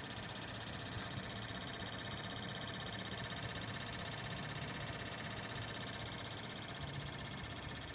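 Steady whir of a Tesla's cabin climate-control system with a fast, continuous clicking in it. The clicking only happens with the climate control on and is thought to come from the blower fan.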